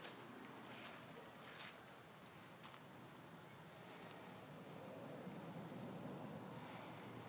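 Faint outdoor background with several brief, high-pitched chirps scattered through it and a few soft rustles of leaves brushing the phone.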